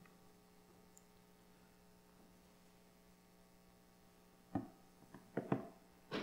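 Steady low electrical hum; from about four and a half seconds in, a few short rustles and knocks as a Bible is handled and its pages turned on a wooden pulpit near the microphone.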